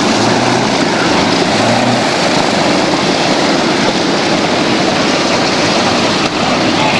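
Propeller airplane's piston engine running, a loud, steady, dense engine noise with no breaks.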